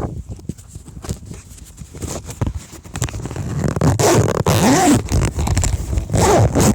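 Close handling noise: irregular scraping, rubbing and clicks, loudest about four seconds in and again near the end, as the recording phone is fitted into a handlebar phone holder.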